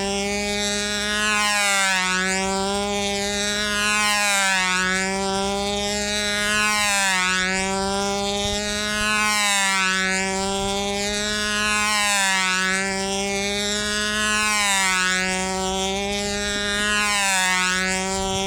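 Small O.S. 10LA two-stroke glow engine of a control-line model airplane running at a steady high speed in circling flight. Its buzz rises and falls in pitch and loudness about every two and a half seconds as the plane comes round each lap.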